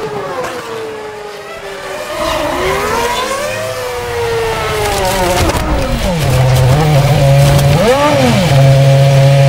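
BMW Sauber Formula 1 car's 2.4-litre V8 engine heard from onboard, its pitch falling and rising through the gears. About six seconds in, as the car runs off into the grass, the note settles into one steady pitch, with a brief dip and rise near the end.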